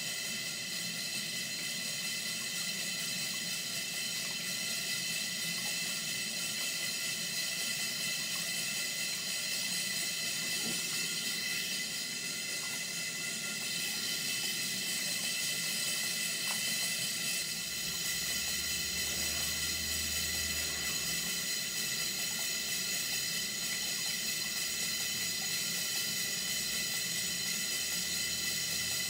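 Live-steam model plant (Stuart Twin Victoria engine, HB6 boiler and duplex steam pump) running under steam: a steady hiss with several high ringing tones held through it.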